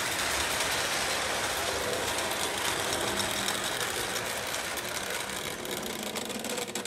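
Lionel 681 O-gauge turbine locomotive running with a long freight train: a steady whirring of its electric motor and gears, with the wheels clattering over three-rail track.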